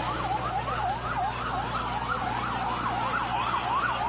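Emergency vehicle siren in a fast yelp, its pitch sweeping up and down about two or three times a second, over a steady low hum. Near the end it switches to a quicker warble.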